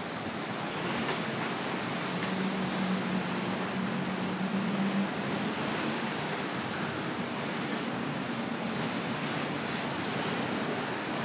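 Steady rushing of wind and sea waves around a cruise ship at sea.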